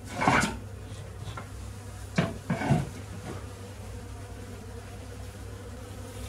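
Honeybees buzzing steadily around comb cut from a wall cavity. Three short knocks and rustles, about a quarter-second in, just after two seconds and near three seconds, come from the comb being handled over a plastic bucket.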